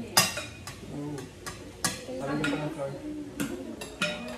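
Spoons and forks clinking and scraping against ceramic plates and a serving bowl during a meal: a string of sharp, irregular clinks, the loudest just after the start.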